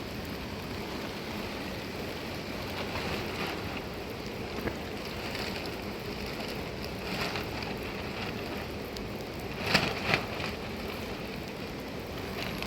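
Steady rain falling. About ten seconds in, two sharp knocks come close together.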